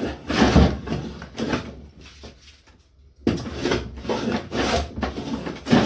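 Hand plane shaving along a reclaimed 2x4 board clamped in a vise: a run of quick scraping strokes about two a second, a pause of about a second near the middle, then more strokes. The planing is taking down the lip left where the board was ripped from both sides with a circular saw.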